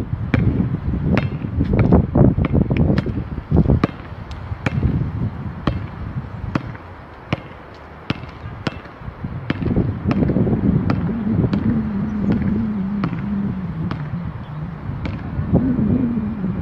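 Basketball bouncing on an outdoor court: sharp slaps at an uneven pace of about one or two a second. From about ten seconds in, a steady low hum comes in underneath.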